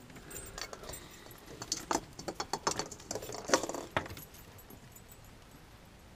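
Light jingling and scattered clicks as a Yorkshire terrier moves about on a wooden deck, busiest in the first four seconds and then dying down.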